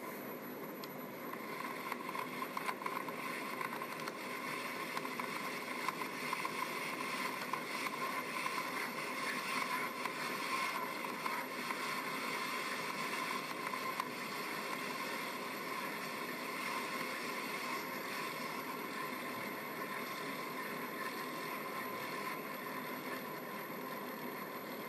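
Polaris RZR side-by-side's engine running hard at steady high revs, a continuous drone mixed with wind rush on the onboard microphone, a little louder and rougher in the first half.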